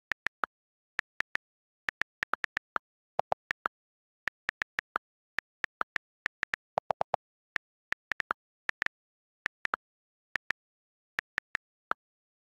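iPhone on-screen keyboard clicks, one per key tap, typing at an uneven pace, a few taps a second. A couple of the clicks sound deeper than the rest.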